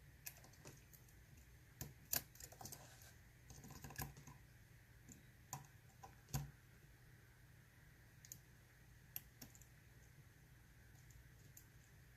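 Faint, irregular small metallic clicks and ticks of a dimple lock pick working the pins of a Mul-T-Lock Interactive padlock, with the loudest click about two seconds in. A low steady hum runs underneath.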